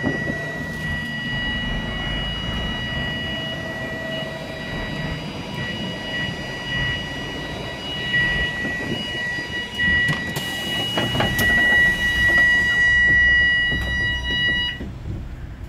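A bus idling with a steady, high-pitched electronic warning tone sounding over the engine rumble; the tone cuts off suddenly near the end. A hiss comes about two-thirds of the way through.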